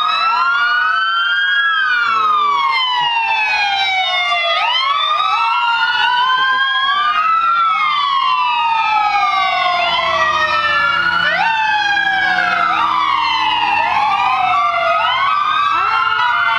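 Sirens of several fire trucks wailing at once, out of step with one another, each rising and falling in pitch every few seconds.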